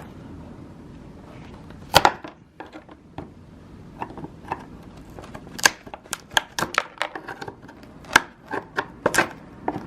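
A screwdriver chipping hardened, caked-on old Bondo body filler off a car's side skirt: irregular sharp taps and cracks, a single loud one about two seconds in, then many in quick succession from about four seconds in.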